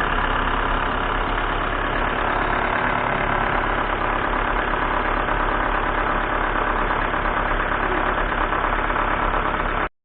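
Hyundai Santa Fe's 2.2 CRDi four-cylinder turbodiesel idling steadily on its first start after the turbocharger was refitted with a new exhaust manifold. The sound cuts off abruptly near the end.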